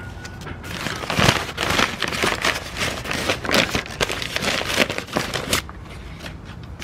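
Crumpled brown kraft packing paper crinkling and crackling as it is pulled apart and unwrapped by hand, a dense run of crackles that dies down near the end.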